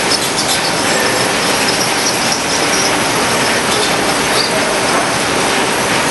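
Automatic pita bread make-up line running: conveyor belts and their drive motor make a steady mechanical noise, with faint short high squeaks now and then.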